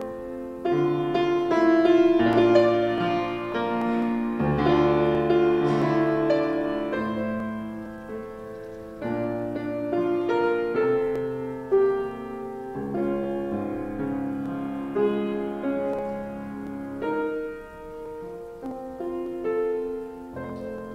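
Solo grand piano playing chords and melody, louder at first and more softly from about seven seconds in.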